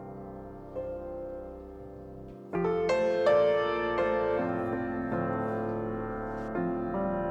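Background music: soft piano with held notes, joined by fuller, louder chords about two and a half seconds in.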